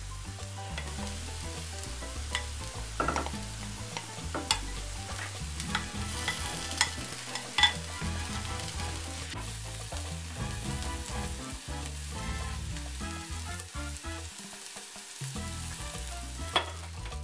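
Hashbrowns and egg sizzling steadily in a nonstick frying pan. A plastic spatula scrapes and taps against the pan, giving scattered sharp clicks.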